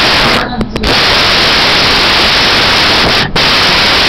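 Loud, steady static hiss, cutting out briefly for a moment just after the start and again about three seconds in.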